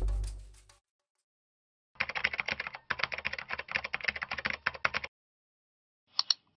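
Computer keyboard typing sound effect: rapid keystrokes for about three seconds with a brief pause partway, then a single mouse click near the end. The tail of a music sting fades out in the first second.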